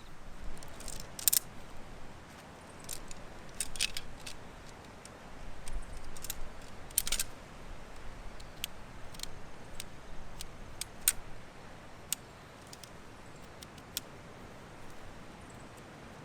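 Small hard objects being handled: irregular light clicks and clinks, a cluster of them in the first half and sparser single clicks later, over a low steady background hiss.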